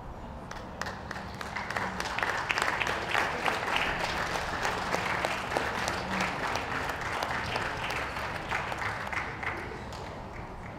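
Ringside crowd applauding: dense clapping that builds over the first couple of seconds, then tails off near the end.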